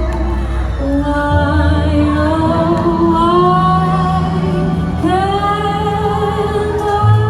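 Background music with a woman's singing voice over sustained low notes, starting suddenly just before this point.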